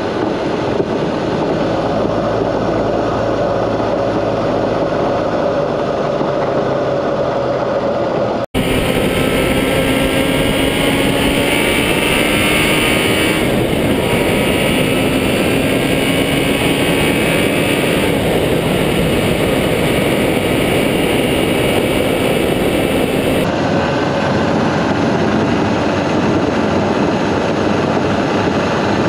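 Vehicle driving along a gravel track, its engine running under a steady noise of tyres on loose stone. The engine tone rises and falls. About eight seconds in the sound drops out for an instant and comes back brighter, then changes back a few seconds before the end.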